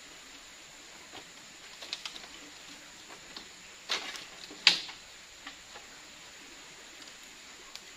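Scattered creaks, clicks and knocks of bamboo poles as a person shifts about on a bamboo platform and climbs down it, with two louder knocks about four seconds in, over a faint steady forest hiss.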